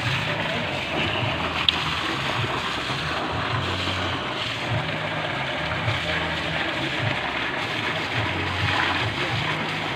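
Water gushing and splashing steadily out of the discharge pipe of a newly installed deep-well submersible pump, the strong flow showing the pump is working. A single sharp click a little under two seconds in.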